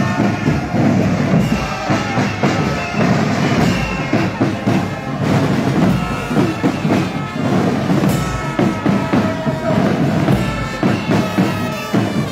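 Loud drumming with music, a dense run of beats without a pause.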